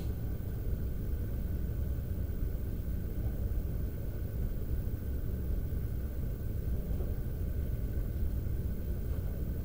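Steady low background rumble with a faint steady hum higher up, unchanging throughout.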